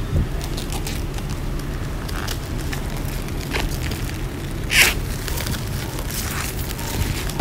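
Crinkling and clicking of a plastic-shrink-wrapped cardboard box being turned over in the hands, with a sharper crackle about five seconds in, over a steady low background rumble.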